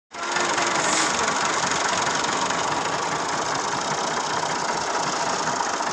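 Massey Ferguson tractor diesel engines running steadily, close by.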